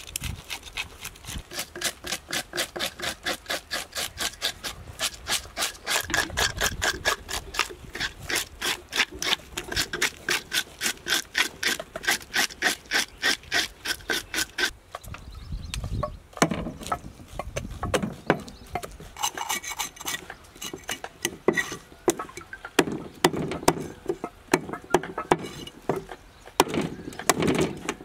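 A knife scraping the scales off a murrel (snakehead) fish on a wooden chopping block, in quick even strokes about four a second. About halfway through the steady scraping stops and gives way to irregular knocks and scrapes of the knife on the block as the fish is cut.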